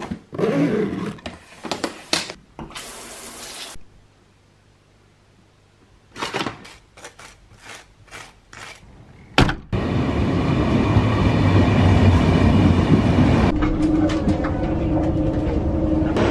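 Clothes rustling as they are packed into a suitcase, then a brief hiss. A knife scrapes butter onto toast in a series of short strokes. About ten seconds in, the steady rumble inside a moving passenger train's cabin takes over as the loudest sound, and a steady hum joins it near the end.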